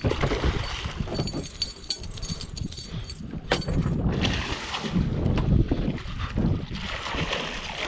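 Wind buffeting the microphone over the water, with a hooked musky splashing at the surface alongside the boat around the middle.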